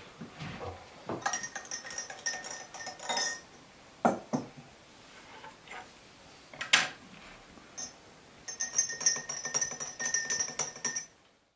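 Metal teaspoons stirring in small glass tea glasses: two runs of rapid, ringing clinks, one starting about a second in and one near the end, with a couple of single knocks of glass or dishes on the table between them.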